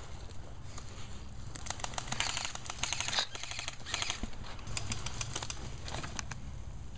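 Rustling and crackling of brush, twigs and dry leaves as a player pushes through woodland, with a dense run of snaps from about two to four and a half seconds in.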